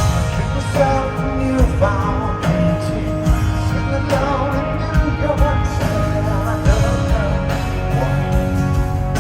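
Live rock band playing, heard through a phone's microphone, with a vocal or lead melody line wavering over the band for the first half.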